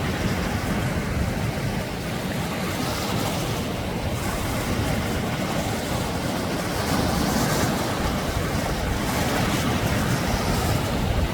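Sea waves breaking and washing up on a beach, a steady surf sound that swells slightly about three seconds in and again between about seven and nine seconds.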